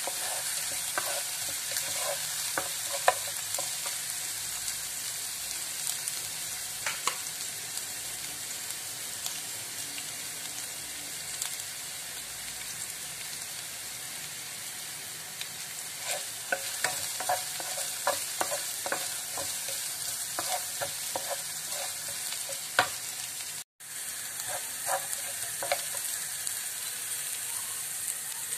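Chopped garlic, ginger and onion sizzling in hot oil in a nonstick frying pan, with the clicks and scrapes of a wooden spatula stirring them. The sizzle breaks off for a moment about 24 seconds in, then carries on.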